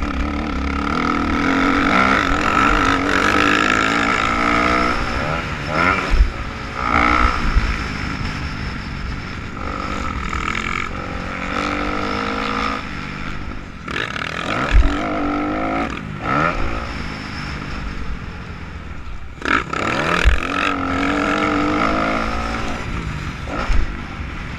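Dirt bike engine revving up and down repeatedly through the gears as it is ridden around a motocross track, with wind rumbling on the microphone. There are a few sharp thumps from the bike hitting bumps, about a third of the way in, past the middle and again after that.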